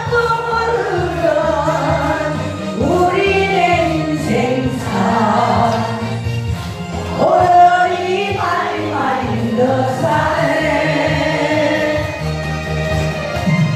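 A Korean trot song with a backing track and several voices singing together in long, sliding phrases.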